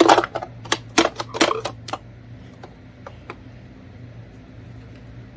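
A quick run of sharp clicks and knocks, about eight in the first two seconds, then a low steady hum with a few faint ticks.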